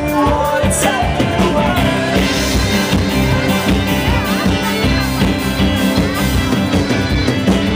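Live band playing an instrumental passage, with fiddle, accordion and plucked upright bass over a steady drum beat, heard loud through the club's sound system.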